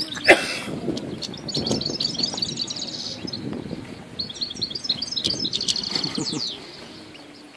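Goldfinch singing: two runs of rapid, high twittering chirps, each about two seconds long, one a couple of seconds in and one past the middle. A short, sharp, loud sound comes near the start.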